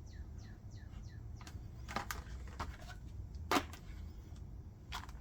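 A bird's quick run of falling chirps, about three a second, fading out after the first second and a half. Then a few scattered sharp clicks, the loudest about halfway through.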